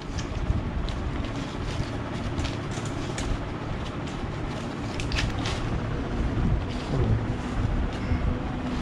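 Steady low background rumble with scattered soft crackles and clicks as white adhesive tape is wound onto the aluminium wire of a Modified Thomas splint.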